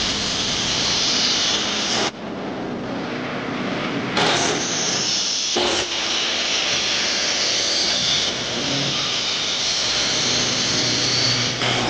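Table saw running and ripping pine boards, a loud steady whine and rush of the blade through the wood. The sound jumps abruptly a few times.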